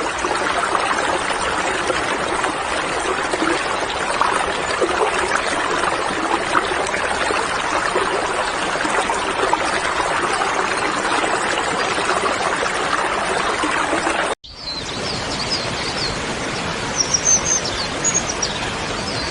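Running water, a steady rush. After a short break about fourteen seconds in, the water goes on with birds chirping over it.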